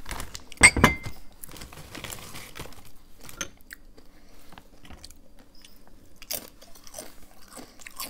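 Close-up crunching and chewing of crunchy falafel chips dipped in queso, with small crackles throughout. About half a second in, the loudest sound is one sharp clink with a brief ring.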